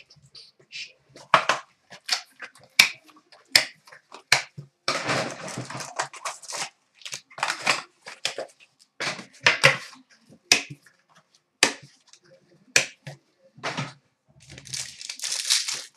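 Hockey card box and pack packaging being opened and handled: an irregular string of sharp clicks and snaps from cardboard and plastic, with a stretch of crinkling and tearing about five seconds in and again near the end.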